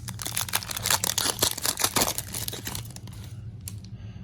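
Foil trading-card pack crinkling as it is torn open: a dense run of crackles that dies down about three seconds in.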